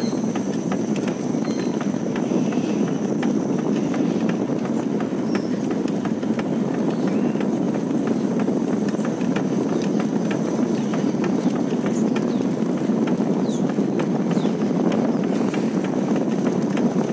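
Steady rushing wind noise on the microphone of a phone carried on a moving bicycle, with frequent small irregular ticks and rattles over it.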